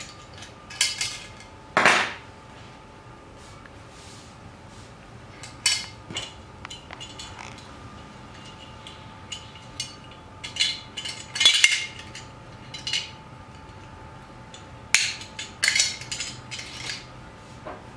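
Stainless steel rotary grater being handled and taken apart: irregular metallic clinks and clacks of its parts against each other and the tabletop, loudest a little past the middle and again near the end.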